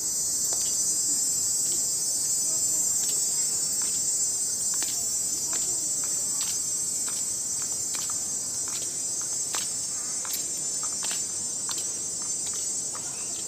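A steady, high-pitched chorus of insects droning without a break, with scattered light clicks.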